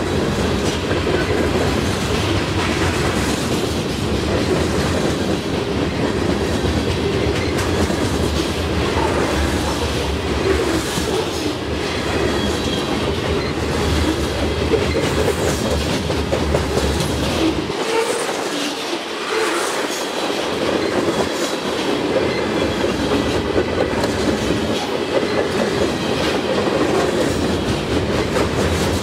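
Freight train of covered hopper cars rolling past, wheels clattering over the rail joints with a steady rumble. The deepest part of the rumble eases for a few seconds just past the middle.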